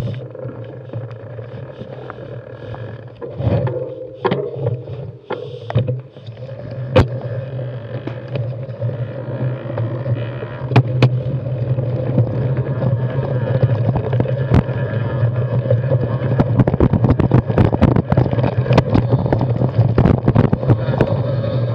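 Mountain bike with plus-size tyres rolling over a rocky dirt trail: steady tyre and ride noise, with rattles and knocks from the bike over rocks that come thicker in the second half.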